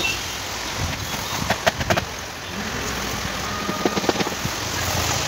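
Sharp metallic clicks and taps, a cluster of three about a second and a half in and a few more about four seconds in, from a metal rod prying cut copper winding pieces out of a ceiling fan stator, over a steady background hiss.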